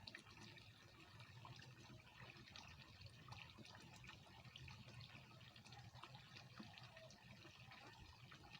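Faint, steady trickle of water flowing in a small ditch, with a few small ticks.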